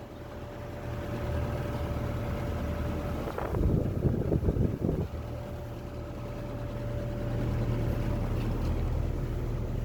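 Air conditioner running: a steady low hum with a faint steady whine above it. About three and a half seconds in, a louder rushing, rustling noise cuts in for about a second and a half.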